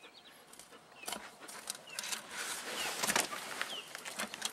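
Irregular knocks and clatter of gizzard shad bait being handled on a wooden cutting board in a boat, with a few short high chirps between them.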